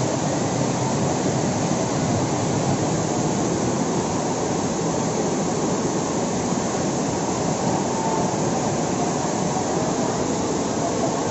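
Muddy flash-flood water rushing past in a torrent, mixed with heavy rain: a steady, unbroken wash of water noise.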